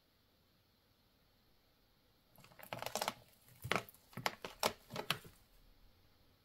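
Long steel tweezers clicking and tapping, a quick run of sharp clicks that starts a couple of seconds in and lasts about three seconds.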